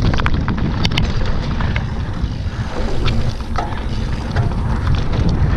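Wind buffeting the camera microphone and knobby mountain-bike tyres rolling fast over a dirt trail, with scattered clicks and rattles from the bike over bumps.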